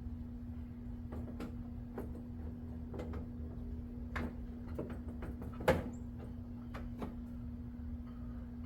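Scattered sharp clicks and knocks of tools and car parts being handled, about eight in all, the loudest a little past the middle, over a steady low hum.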